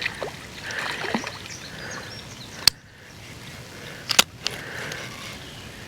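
Water splashing as a hooked fish thrashes at the creek surface, with two sharp clicks later on, the second a double click.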